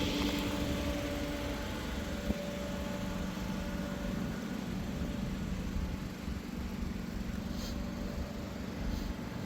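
A car engine idling steadily with a low rumble. A faint steady hum fades out about halfway through, and there is a single click a little over two seconds in.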